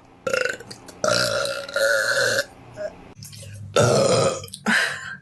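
A girl burping, a run of loud belches in quick succession, the longest lasting about a second.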